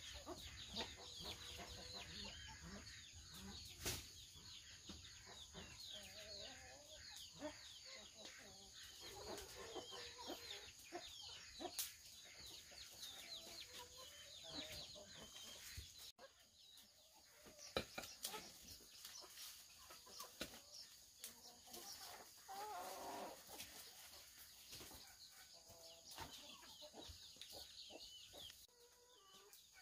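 Faint chickens clucking, with a dense chatter of short, high, falling chirps over the lower clucks.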